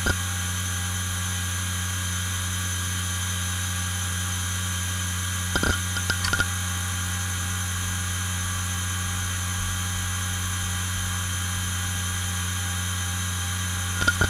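IBM Travelstar 25GS five-platter 2.5-inch hard drive idling at 5411 rpm, with a steady spindle hum and a high whine. A brief burst of head seek clicks comes about six seconds in, and more seek clicks start near the end as a read/write benchmark begins.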